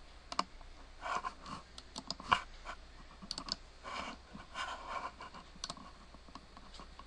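Irregular clicks and taps from a computer mouse and keyboard, with short soft rustling noises between them; the loudest click comes a little over two seconds in.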